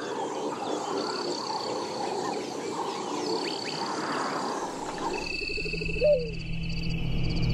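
Dense evening chorus of frogs calling over one another, with a high, steady insect-like trill repeating every second or so. About five seconds in the chorus drops away to a low steady hum under higher trills, with one short sharp call near the end.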